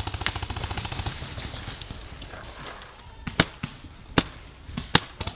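Paintball markers firing: a fast string of shots that fades out over the first second and a half, then three single sharp pops, each about a second apart.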